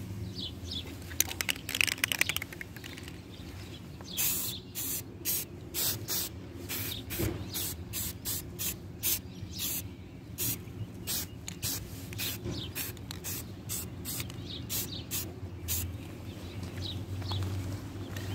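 Aerosol spray-paint can: its mixing ball rattles briefly as the can is shaken, then the paint is sprayed on in many short hissing bursts, about two or three a second, for some twelve seconds.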